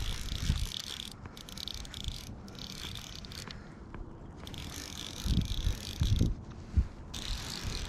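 Fly reel clicking as it is cranked by hand to reel in a hooked trout, in spells broken by brief pauses, with a few low thumps in the second half.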